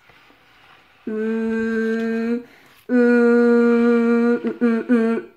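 A woman's voice humming: two long held notes on the same steady pitch, then a few short hums near the end.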